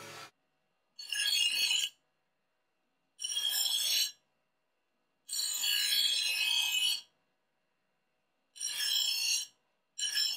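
Edge of a cut metal plate ground against a bench grinder wheel, chamfering and deburring the sawn edge. It comes as about five separate grinding passes of a second or so each, with sharp starts and stops.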